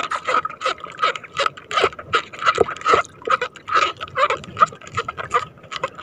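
Water splashing and dripping in quick repeated bursts, about three a second, as fishing line is hauled in hand over hand over the side of a boat.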